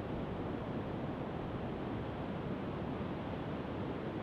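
Steady wash of ocean surf and wind, even throughout, with no single wave crash standing out.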